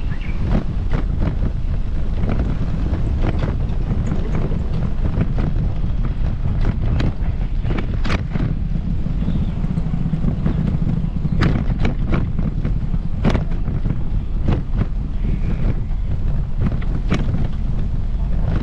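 Steady low wind rumble on the microphone, with scattered light ticks or taps through it.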